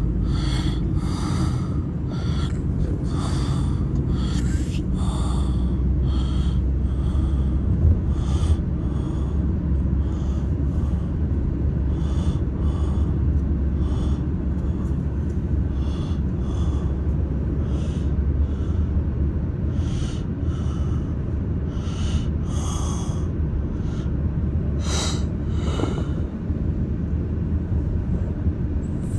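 Steady low road and engine rumble inside a moving car's cabin. Over it come short, irregular breaths or sniffs close to the microphone, about one a second.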